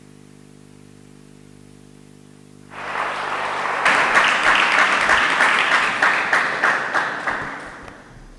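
Audience clapping, breaking out about three seconds in, holding strong for a few seconds, then dying away near the end. Before it there is only a faint steady hum.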